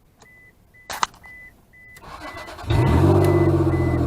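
1999 Isuzu Amigo with a warning chime beeping steadily and a click about a second in. Then the rigged push-button starter cranks and the engine catches about two and a half seconds in and keeps running, with the starter, left switched on, still running along with it.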